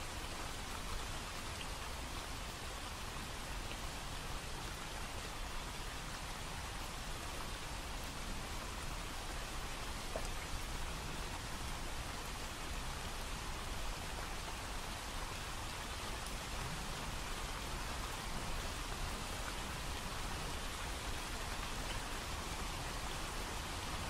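Steady rain: an even hiss of falling drops that holds the same level throughout, without any rise and fall.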